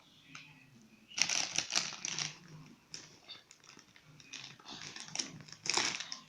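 Crinkling and crackling from a child eating crunchy snacks from a packet, in bursts about a second in and again near the end.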